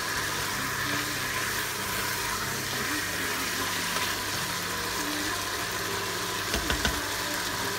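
Potatoes and minced pork sizzling steadily in the hot inner pot of an electric pressure cooker as they are stir-fried with a spatula, over a steady low hum. A few sharp scrapes of the spatula against the pot come near the end.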